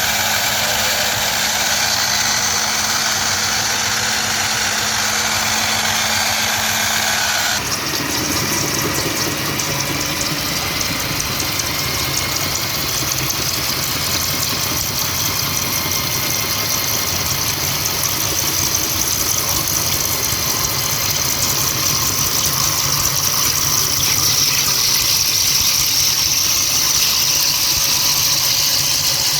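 Core drilling machine running with its core bit boring into rock: a steady, loud grinding noise. About a quarter of the way through the sound changes abruptly to a harsher, higher grind.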